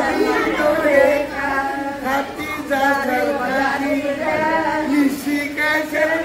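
Several women's voices singing together in a sustained, chant-like melody, with some talking mixed in.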